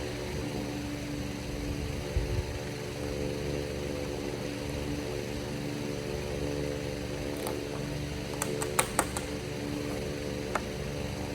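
A steady mechanical hum with several steady tones, like a running fan. A dull knock comes about two seconds in, and a quick run of sharp clicks follows later, typical of hardware and tools being handled on a cabinet.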